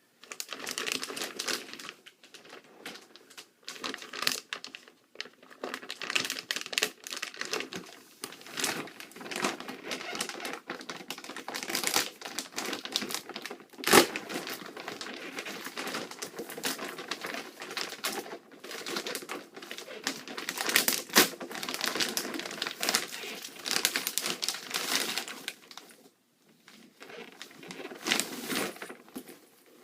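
A bag crinkling and rustling in irregular bursts as goalie pads are pulled out of it, with one sharp knock about halfway through.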